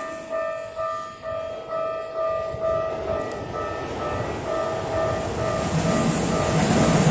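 Japanese level crossing warning bell ringing in a steady repeating clang about twice a second, while a Keikyu train approaches and passes. The train's rumble and wheel noise build from about halfway through and grow loud near the end, nearly covering the bell.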